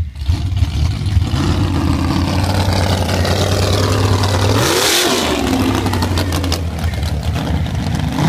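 Mud truck engine running loud and revving, its pitch climbing over several seconds. About five seconds in there is a short rush of noise, and then the engine is heard running steadily again.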